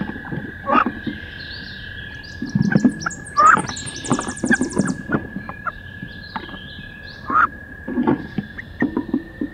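Two female wood ducks fighting inside a wooden nest box: irregular scuffling, wing flapping and thumps against the box walls, with a few short harsh calls, over a steady high tone.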